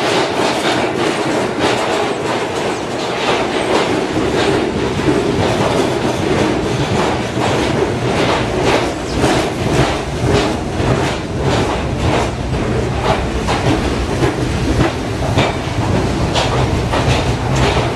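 New York City subway train running past, its steel wheels clicking steadily over rail joints, with a low hum that grows stronger about four seconds in.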